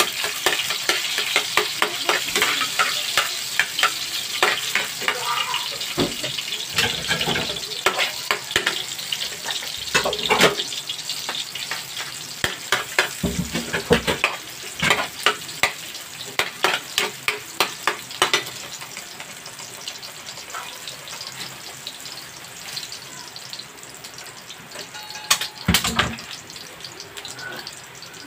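Onions and garlic sizzling in hot oil in a frying pan, with a metal spatula and ladle scraping and clicking against the pan as they are stirred. The clicking is dense for the first eighteen seconds or so. After that the sizzle carries on more quietly, with a louder knock about twenty-five seconds in.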